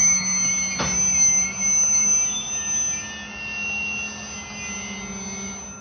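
Covered hopper cars of a grain train rolling past, their wheels squealing in steady high tones over a low hum, with one sharp clunk about a second in.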